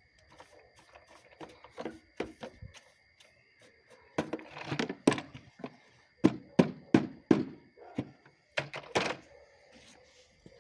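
Irregular hollow thunks and knocks, a dozen or so, sparse at first, then clustered and louder in the second half, as the wet/dry shop vacuum's emptied drum is handled and cleaned.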